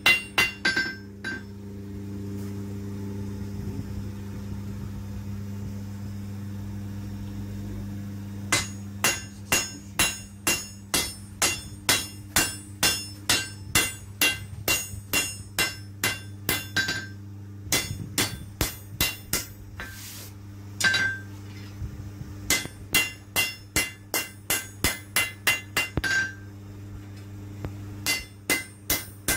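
Hand hammer forging a red-hot steel knife blade on an anvil: bursts of sharp blows at about two to three a second, some with a short metallic ring. A long pause about a second in, filled by a steady low hum, and a few shorter pauses later between the bursts.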